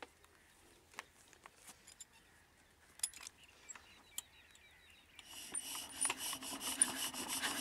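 Small clicks and scrapes of hands working on a Petter diesel engine, then, about five seconds in, a mechanical run that grows steadily louder as the engine is turned over and starts up.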